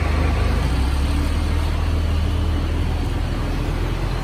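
Street traffic noise with a steady low engine hum from a nearby vehicle.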